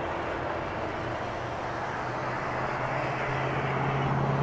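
Highway traffic passing: a steady rush of tyre noise, with the low engine hum of a heavy truck growing louder toward the end.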